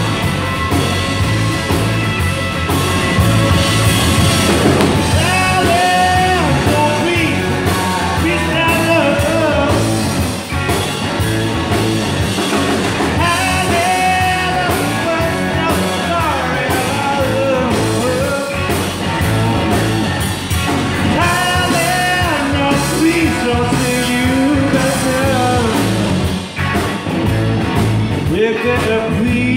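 Live rock band playing: a man sings over electric guitar, bass guitar and drums. The vocal line comes in about five seconds in and carries on over the steady band.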